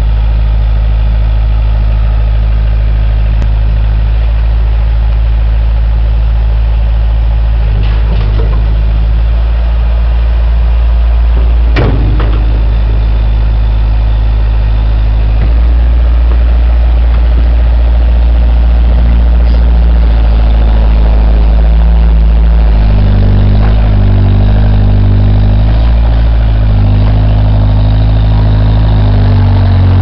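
Bobcat 743 skid-steer loader's engine running close by while the machine drives and lifts its bucket. The engine note steps up about halfway through and rises and falls repeatedly near the end. A single sharp click about twelve seconds in.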